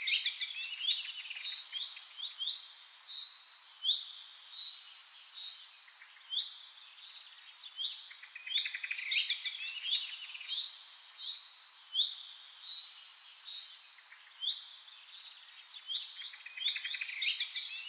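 Songbirds chirping and singing: phrases of high, rapid chirps and trills, with short lulls between phrases.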